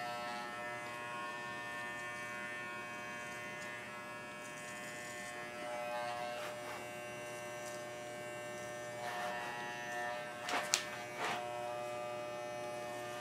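Corded Wahl Basic Pet Clipper running with a steady electric buzz as it trims a miniature schnauzer's belly hair. A few brief sharp clicks come about ten seconds in.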